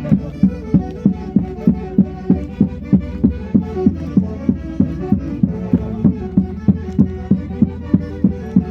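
Andean folk orchestra playing Santiago dance music, with a steady drum beat of about three strokes a second under held melody notes.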